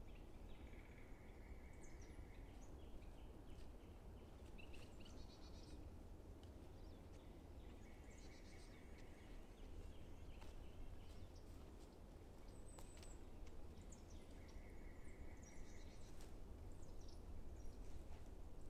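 Wild songbirds singing faintly: one bird repeats a short trill about every seven seconds, with scattered higher chirps between, over a steady low outdoor rumble.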